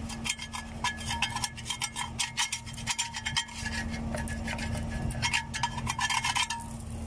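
Screwdriver scraping and clicking against a steel disc-harrow blade, cleaning around its bolt fixing, with the disc ringing briefly at each knock. The scraping stops shortly before the end, over a steady low hum.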